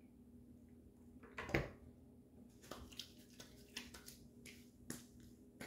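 Quiet handling of a bottle of aftershave splash: scattered small clicks and taps, with one louder knock about one and a half seconds in, over a faint steady hum.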